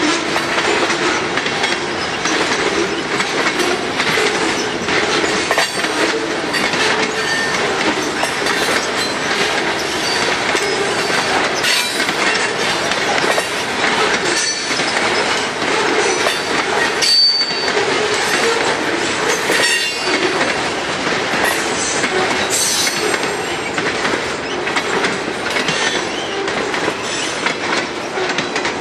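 Freight train boxcars rolling past on jointed rail with a steady clatter of wheels over rail joints and brief high wheel squeals. The rumble eases slightly near the end as the last car goes by.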